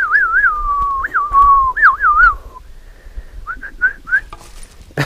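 A person whistling to call a dog back: a warbling whistle that slides slowly downward for about two and a half seconds, then, after a short pause, four quick rising chirps.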